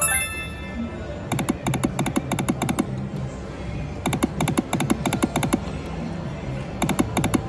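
Rakin Bacon Deluxe video slot machine sound effects: the tail of a falling win jingle at the start, then three runs of rapid electronic clicking as the reels spin, one spin after another.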